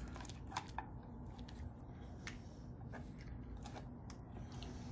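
Faint scraping and a few light, scattered clicks of a spatula scooping ricotta out of a metal mixing bowl and dropping it onto the pasta.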